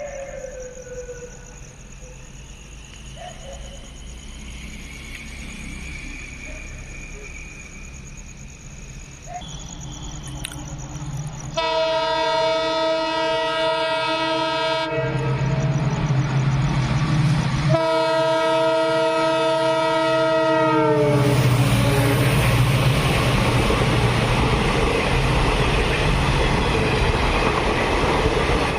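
A locomotive horn sounds two long blasts, about three seconds each, the second dropping in pitch as it ends, over a rising low rumble. Then comes the loud, steady noise of the train running past on the track.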